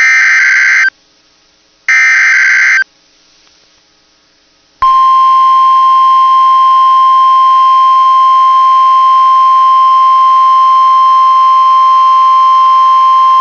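NOAA Weather Radio emergency alert: the last two bursts of the digital SAME header, each about a second long and a second apart, carry the coded winter storm warning. After a two-second gap, the steady one-pitch warning alarm tone comes on about five seconds in and holds.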